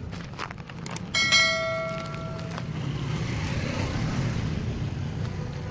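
A single bell-like chime struck about a second in, ringing with several clear tones and fading over about a second and a half, over a low steady hum.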